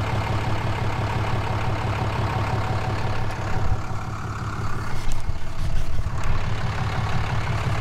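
Truck engine idling, a steady low rumble. About three and a half seconds in it breaks up into irregular low thumps and rustling, like the camera being handled or knocked about.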